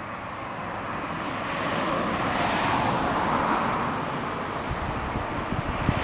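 A car passing on the road, its tyre and engine noise swelling to a peak in the middle and then fading. Insects chirp faintly and regularly in the background.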